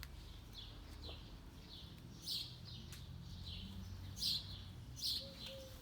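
Small songbirds chirping: short, high chirps repeating irregularly, over a faint steady low hum.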